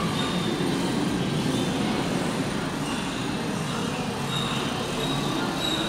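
Steady background noise of a large indoor exhibition hall, an even hum without breaks, with a faint high tone coming in during the second half.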